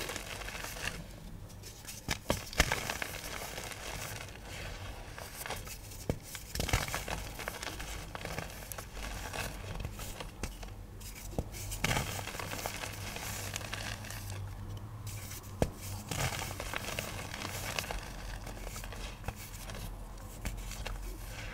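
Dry chalky pigment powder and small lumps being crushed and crumbled: continuous crackling and crunching, with occasional sharp snaps and a few brief pauses.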